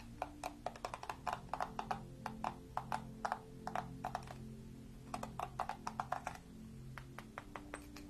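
Long acrylic fingernails tapping and clicking on a hard pink plastic lips-shaped hair brush, in two runs of quick taps with a few scattered taps near the end, over soft background music.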